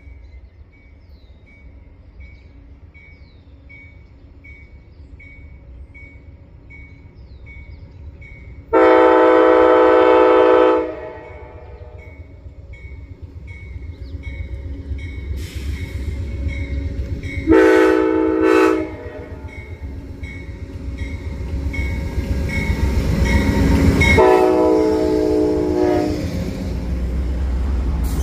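Amtrak P42DC diesel locomotive horn on an approaching passenger train: one long blast, a shorter blast, then another long blast. Between and after the blasts, the rumble of the locomotives' engines and wheels grows louder until the locomotives are passing.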